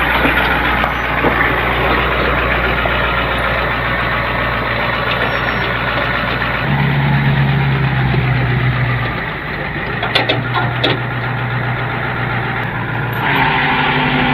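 Truck engine running steadily, its note shifting about seven seconds in and again near the end, with a couple of sharp clanks about ten seconds in.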